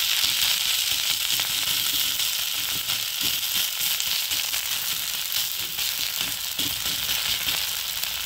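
Dosa frying on a hot tawa, a steady sizzle with light crackling, just after being flipped onto its ghee-coated side with moringa and curry leaves.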